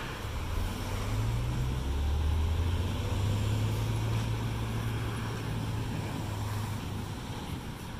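Diesel engine of a heavy tractor-trailer loaded with steel, pulling away: a low rumble that climbs a little in pitch between one and two seconds in, then holds steady and fades slightly near the end, over road noise.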